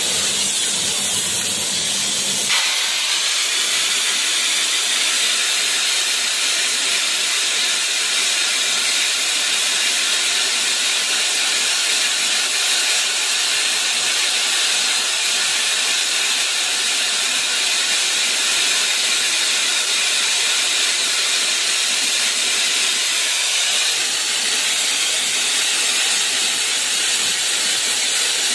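Metal spray gun hissing steadily as it sprays stainless steel onto an impeller shaft. A low hum stops about two and a half seconds in, leaving only the hiss.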